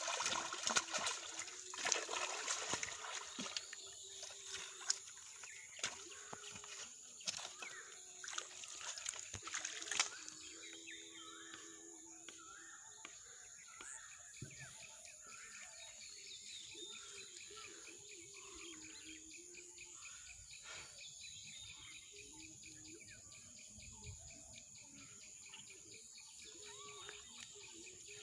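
Pond water splashing and sloshing in short irregular bursts for about the first ten seconds, then a quieter outdoor backdrop of birds chirping over a steady high insect drone.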